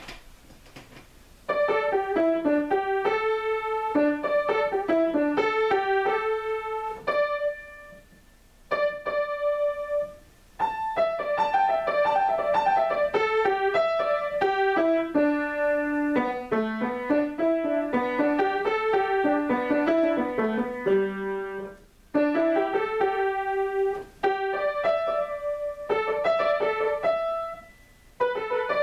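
Solo grand piano improvisation, mostly in the middle register, starting about a second and a half in, with short breaks between phrases.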